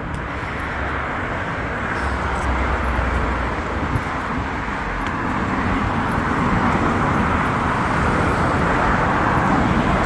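Road traffic passing: a steady noise of cars and tyres that grows gradually louder, with no horn sounding.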